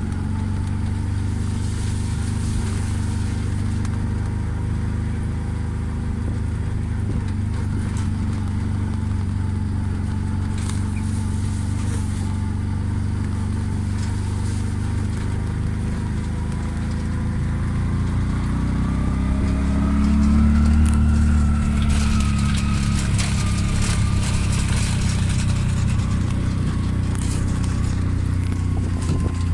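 Engine of a road vehicle being ridden in, running steadily. About two-thirds of the way through it speeds up: the engine note rises and grows louder, then eases off.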